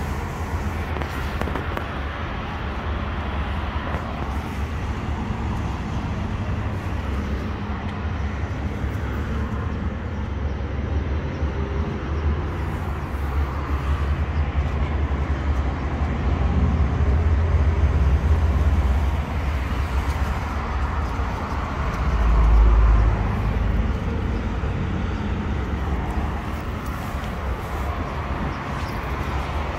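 Steady low outdoor rumble, growing louder for a few seconds past the middle and again in a short swell about three-quarters of the way through.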